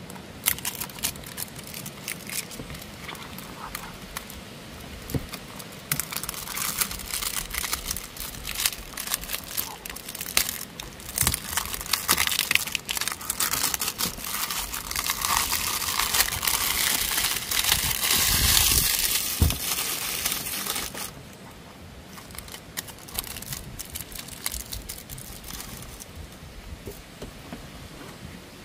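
Clear plastic shrink-wrap being peeled and torn off a cardboard box, crinkling and crackling in irregular bursts. It grows louder toward the middle, then drops about three-quarters of the way through to a few light crackles.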